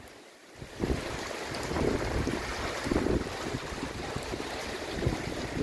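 Typhoon wind gusting and buffeting the microphone in repeated blasts over a steady hiss of heavy rain. A brief lull ends about a second in.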